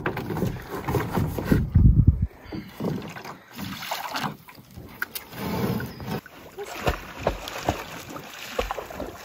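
Irregular knocks and thumps around an aluminum or plastic canoe, as of a paddle or gear bumping the hull, loudest about two seconds in, with a few sharp clicks later.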